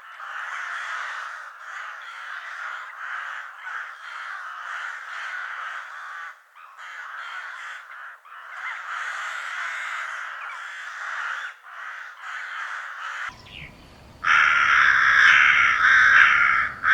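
A flock of crows cawing over one another in a dense, continuous chorus. About 13 seconds in, the sound changes to louder, closer caws that run together in long calls.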